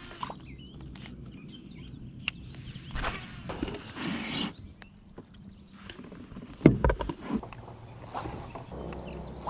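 Scattered knocks and clunks of fishing gear handled aboard a kayak, the loudest a double knock about two-thirds of the way in, over a steady low hum, with small birds chirping faintly.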